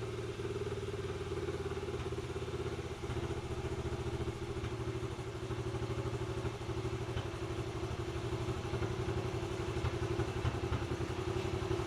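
1991 Honda Z50R's small four-stroke single-cylinder engine idling steadily with an even beat, running good after a carburettor clean.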